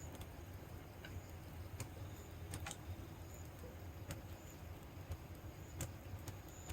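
Wood fire crackling in a fire pit: irregular sharp pops and snaps over a low steady rumble.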